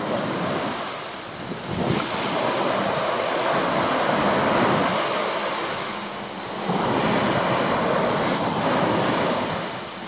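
Small waves breaking and washing up a sandy shore. The surf swells and ebbs twice, fading near the end.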